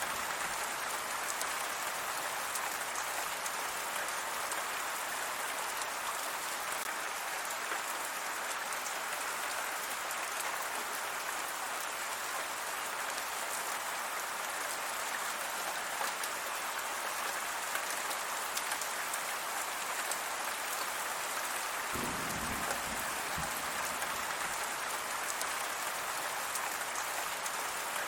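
Steady rain falling, an even hiss with faint scattered drop taps. A brief low rumble comes about three-quarters of the way in.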